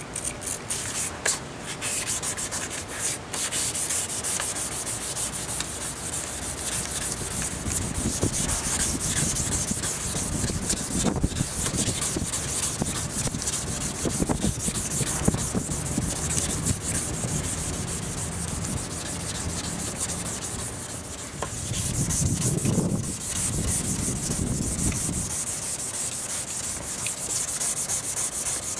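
Sanding the cloudy, oxidized polycarbonate headlight lens of a Mercedes CLK500 to restore it: a continuous abrasive rubbing that swells louder a few times.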